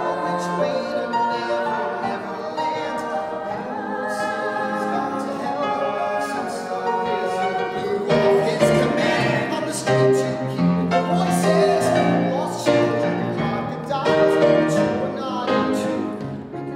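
Male and female voices singing a musical-theatre number together, accompanied by piano, growing louder about halfway through.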